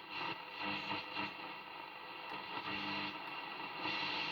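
Cossor CR4212A valve radio's loudspeaker giving off hiss and static on medium wave, with several faint steady whistle tones and no clear programme.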